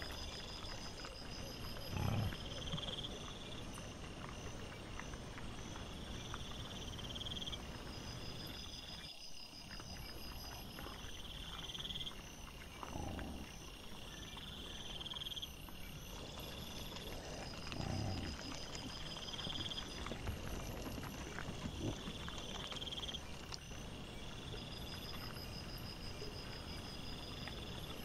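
Night insects chirping in regular repeated trills, with a few short low grunts from wild boar feeding, the loudest about two seconds in.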